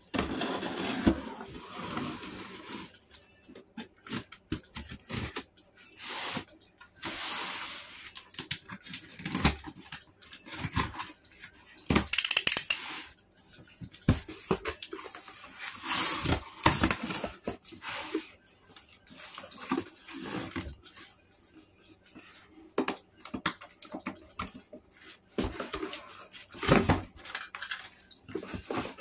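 A cardboard shipping box being opened by hand: flaps pulled back and cardboard and packing scraping and rustling in irregular bursts, with sharp knocks and taps between them.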